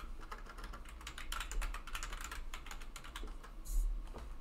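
Typing on a computer keyboard: a fast run of key clicks for about three seconds, then a brief louder noise near the end, over a steady low hum.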